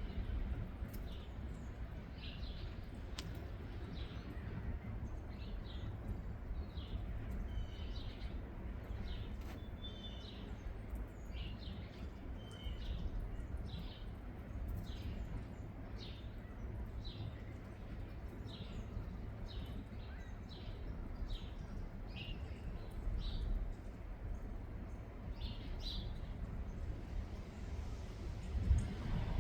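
Wild birds chirping, many short calls one after another at irregular intervals, over a steady low rumble.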